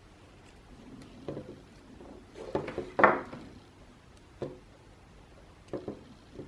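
Small clicks, knocks and a short scraping rustle from wires and hand tools being handled at a workbench while wires are prepared for soldering. The loudest sound is a knock about halfway through.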